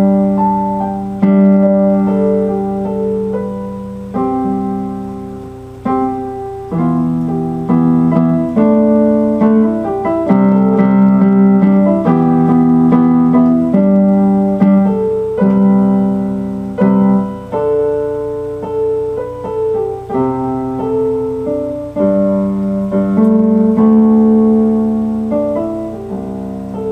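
Keyboard music: piano-like chords and melody notes, each struck and left to fade, shifting every second or so.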